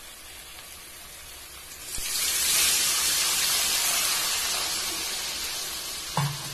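Water poured into a kadhai of fried masala paste in hot oil. A faint sizzle gives way, about two seconds in, to a sudden loud hiss as the water hits the hot oil, which slowly dies down while the pour goes on. A brief knock comes near the end.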